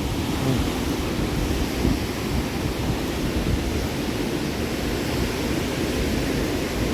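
Steady rushing of a river waterfall, with wind rumbling on the microphone.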